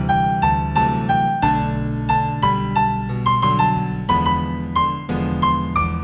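Solo piano playing a gentle new-age melody in G major, single notes about three a second over low held chords, the tune climbing higher near the end.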